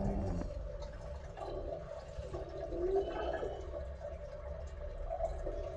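Background guitar music cuts out in the first half second, leaving a steady low hum and faint room noise with a few soft scattered sounds.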